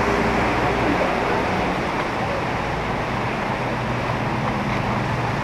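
Road traffic: a vehicle engine running steadily with a low hum under a constant rush of noise.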